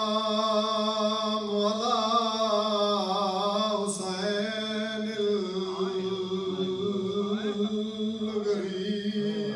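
A man's voice chanting one long drawn-out note with a slight waver in pitch, in the sung style of a mourning recitation.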